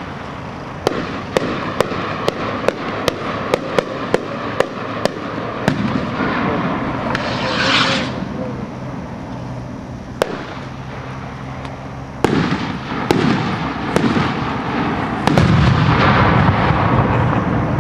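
Hand-made skyrockets going off: first a run of sharp reports about two a second, then the rushing hiss of a rocket in flight swelling up about halfway through. In the second half come several loud bangs, the last ones trailing into a rumble.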